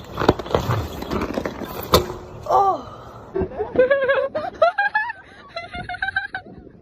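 A clatter of knocks with one sharp crack, then a run of short, repeated honking calls from a goose.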